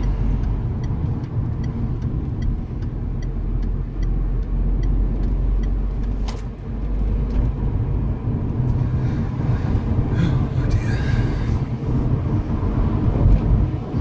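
Road noise inside a moving car's cabin: a steady low rumble of engine and tyres. A light, regular ticking at about two a second runs through the first five seconds.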